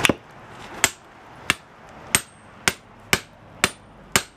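Hammer blows on the back of an axe-head cutter driven into a glowing iron bloom, cutting the freshly smelted bloom. About eight sharp metallic strikes come at roughly two a second, several with a brief high ring.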